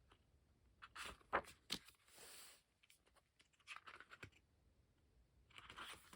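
Faint handling of glossy album photobook pages: a few soft paper rustles with some light clicks and taps as pages are turned.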